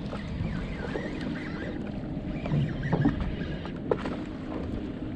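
Steady hum of a fishing party boat's engine with sea noise around the hull, broken by a couple of short knocks about three and four seconds in.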